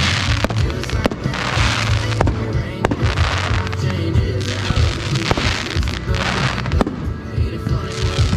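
Consumer display fireworks going off in a finale barrage: sharp bangs about once a second with hissing, crackling bursts between them, over background music.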